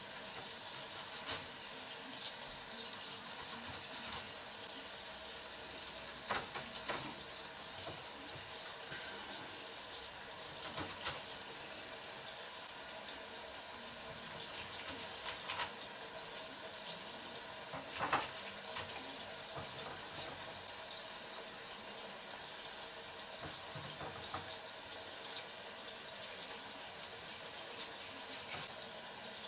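Braising steak sizzling steadily as it browns in hot lard in a pot, with a few scattered knocks of a knife on a chopping board.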